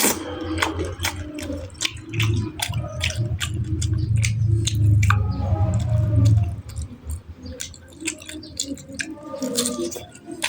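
Close-miked chewing: wet smacks and clicks of a mouth eating, with a heavier low rumbling stretch in the middle.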